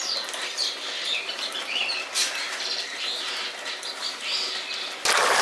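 Small birds chirping repeatedly in the background, with a soft click about two seconds in. Near the end a loud sizzle of sauce bubbling in the pan starts abruptly.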